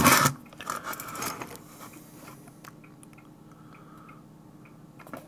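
Fingers handling close to the camera's microphone: a loud crackling rustle at the start that dies away within about a second and a half, then a few faint ticks over a low steady hum.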